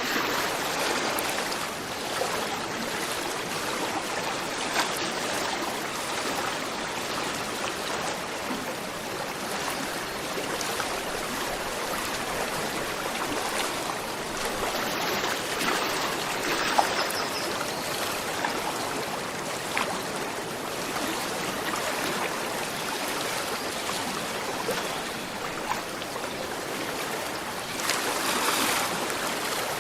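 A gentle river flowing steadily, the water babbling and trickling over stones, with a brief louder swell near the end.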